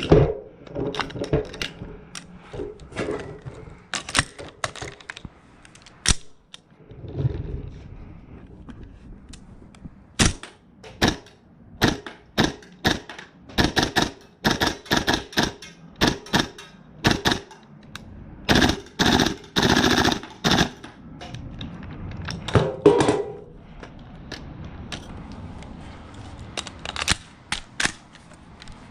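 Tokyo Marui MWS gas-blowback airsoft rifle firing: a run of sharp shots and clacks from the bolt cycling, at irregular spacing, with quicker strings of shots in the middle.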